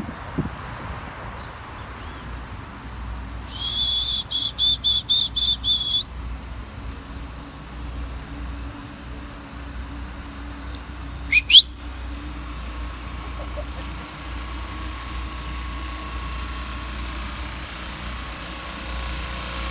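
Steady low wind rumble on the microphone while cycling. It is broken by a rapid run of short, high-pitched whistle pips for about two seconds, and a few seconds later by two quick rising whistles, the loudest sound.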